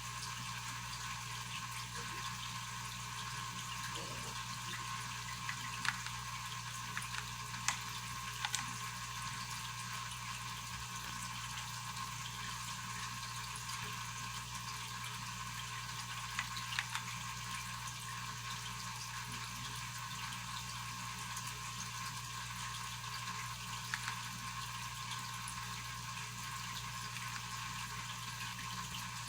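Steady background hiss and low hum, with about six single sharp clicks scattered through, such as keys pressed on a mechanical keyboard to step through its lighting modes.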